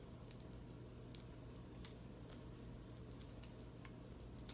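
Faint soft clicks and crackles of a cooked shrimp's shell being peeled apart by fingers, with one sharper click near the end, over a low steady hum.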